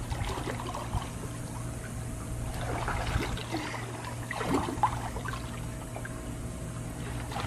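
Pool water splashing and trickling as a child swims and wades through it, with a few small splashes about one, three and four and a half seconds in, over a steady low hum.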